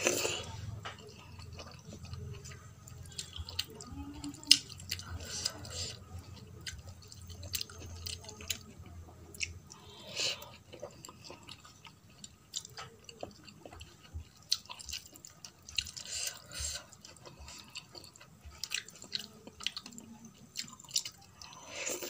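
Eating sounds: fingers mixing wet rice and dal on a steel plate, with irregular wet smacks and clicks, and chewing of handfuls of dal chawal.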